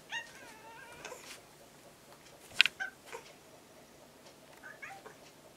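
Young orange-and-white cat meowing: one drawn-out meow falling slightly in pitch at the start, then a short rising chirp near the end. A brief sharp click about two and a half seconds in is the loudest sound.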